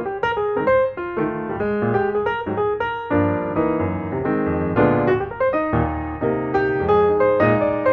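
Background music: a piano tune of quickly struck notes, with fuller low chords coming in about three seconds in.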